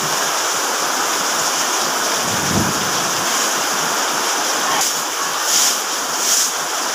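Steady rain falling on a paved alley. Near the end come a few short swishes about a second apart, as a stick broom sweeps the wet concrete.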